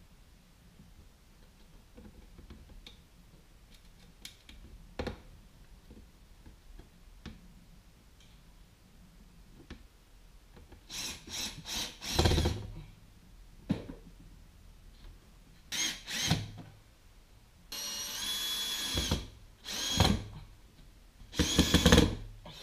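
Cordless drill-driver running in several short bursts of motor whine, driving the fixing screws up into a cooker-hood extractor's housing; the bursts come in the second half, the longest about a second and a half. Before them, a few light knocks from handling the unit.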